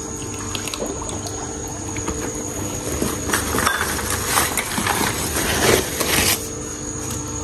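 Water sloshing and splashing in a plastic tub as unglazed clay saucers are handled and set in to soak, busiest from a few seconds in, with woven plastic sacks rustling. A steady low hum runs underneath.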